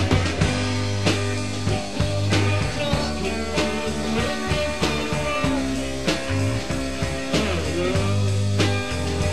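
A rock song playing, with a regular drum beat and low held bass notes under a dense mix of pitched parts.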